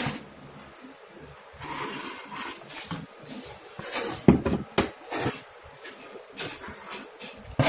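Plastic wallpaper spatula rubbing and scraping over freshly glued wallpaper, pressing it to the wall and squeezing out excess glue, in several short, uneven strokes with a few light knocks around the middle.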